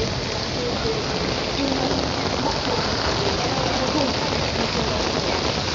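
Steady rain falling and splashing on hard surfaces, a dense even hiss, with faint snatches of voices under it.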